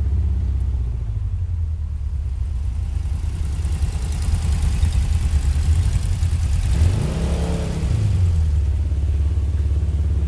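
Air-cooled Volkswagen engine idling with a steady, pulsing low rumble, given one quick rev up and back down about seven seconds in.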